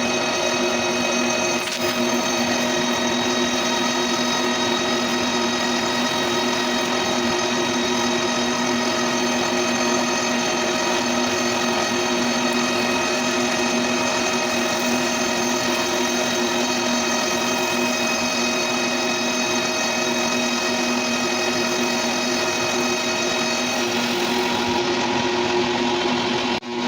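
Lathe running steadily while machining a metal belt pulley, a constant mechanical whine of several steady tones over a rough noise; some of the higher whine drops away near the end.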